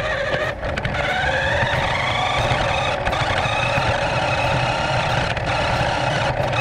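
Electric drive motor and gearbox of a New Bright 1:14 Polaris Ranger RC car whirring. The whine rises in pitch as it speeds up, about a second in, then holds steady.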